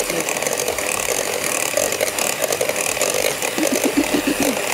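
Electric mixer running steadily, beating cake batter after the sour cream has gone in.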